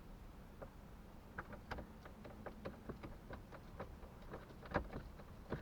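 Faint clicks and taps of small parts being handled and opened, about two or three a second, with one louder click near the end.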